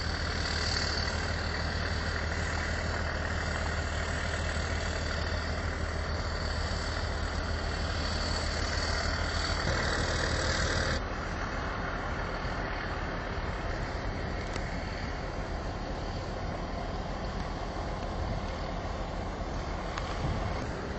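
A steady engine drone with a thin high whine above it, which cuts off abruptly about halfway through. A steady rushing noise follows.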